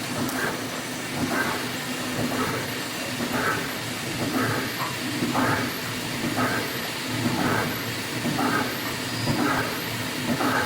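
Welded wire mesh rolling machine running: a steady low hum with a noisy mechanical stroke repeating about once a second.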